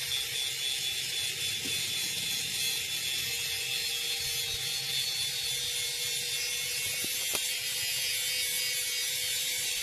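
Corded electric drill, clamped in a drill stand, running steadily at constant speed: an even hum with a fine, rapid ticking. Two faint clicks come about seven seconds in.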